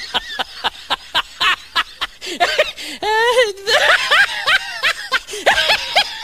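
Loud, hearty laughter in quick repeated bursts, with a longer drawn-out note about three seconds in: a laugh track dubbed onto the laughing-lion meme.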